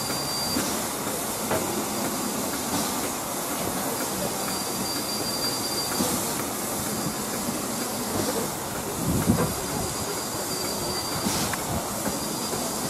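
The stationary LMS Black Five steam locomotive 45231 The Sherwood Forester hissing steadily as it stands at the platform, with a few light knocks through it.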